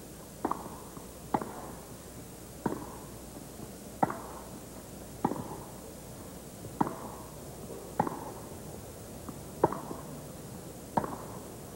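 Tennis racquets striking the ball back and forth in a rally: about nine crisp pops, one every second or so, over a low steady crowd and ambient hum.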